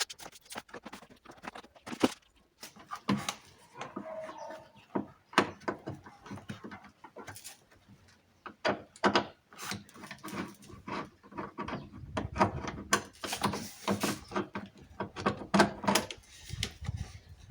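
Hands and hand tools working inside a car door: scattered clicks, knocks and scrapes as the lower bolt holding the window regulator is undone and taken out.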